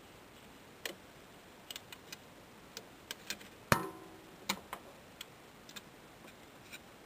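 Plastic clicks and snaps of a Transformers Masterpiece Rodimus Prime figure's chest panels being worked open by hand to reveal its Matrix of Leadership. The clicks are irregular, about a dozen of them. The loudest is a sharp snap a little past halfway that rings briefly.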